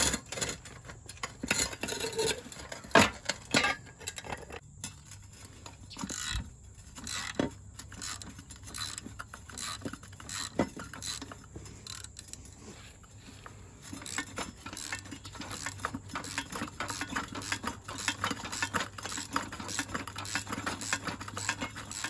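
Socket ratchet clicking in quick, uneven runs as a Kroil-soaked, rusted nut is backed off an exhaust manifold stud, with a couple of sharper metal knocks about three and six seconds in. The clicking grows denser in the last third as the freed nut spins out.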